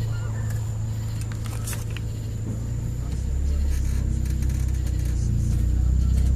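Honda Integra's four-cylinder engine running, heard from inside the cabin: a steady low hum that deepens and grows louder about three seconds in.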